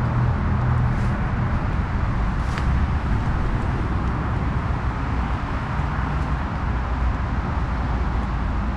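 Steady, continuous noise of road traffic circling a roundabout, a low drone of engines and tyres without a break.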